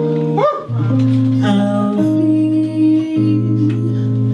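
Jazz guitar and piano accompaniment holding slow, sustained chords between sung lines of a ballad.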